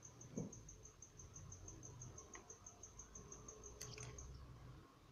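Faint, steady high-pitched chirping of a cricket, about five pulses a second, which stops about four seconds in. A soft knock comes just after the start, and two light clicks come near the end.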